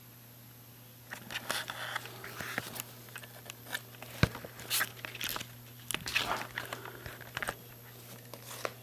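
Handling noise of a small 40 mm cooling fan held close to the microphone: irregular crackles, clicks and scrapes, starting about a second in. The thin 7 mm 5 V fan's own running is almost inaudible: it is a near-silent fan.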